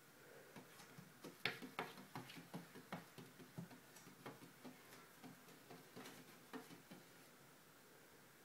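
A cat's paws tapping and pawing against window glass: an irregular run of light taps, a few a second, the loudest about a second and a half in, dying away about seven seconds in.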